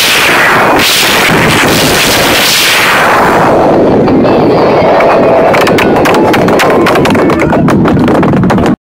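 A loud live band in a packed concert crowd, recorded on an overloaded microphone so it comes through as a heavily distorted wash of noise. The harsh hiss eases about three seconds in, and the sound cuts out abruptly just before the end.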